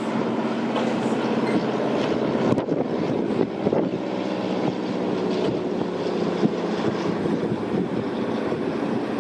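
A large engine running steadily, a continuous mechanical drone with light rattling clicks.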